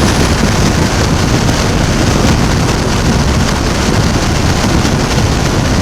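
Steady wind rush on the camera's microphone over the drone of a 2006 Suzuki V-Strom DL1000's V-twin engine, cruising at highway speed.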